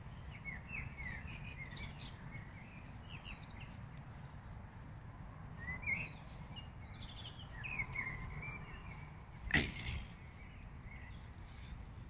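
Small songbirds chirping and singing in short trilled phrases over a steady low rumble. About nine and a half seconds in, a single sharp knock is the loudest sound.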